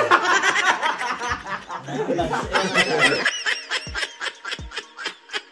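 People laughing hard for about three seconds, then the laughter stops and background music with a thudding beat carries on.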